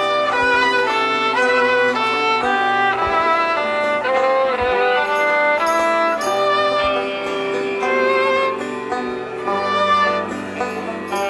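Live band music with no singing: violins bow a melody of quick stepping notes, some held with vibrato, over a low sustained bass line.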